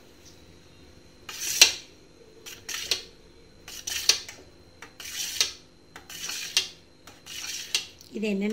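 Kitchen knife cutting through set agar-agar jelly and scraping on the bottom of a steel pan, about seven separate scraping strokes, the first the loudest.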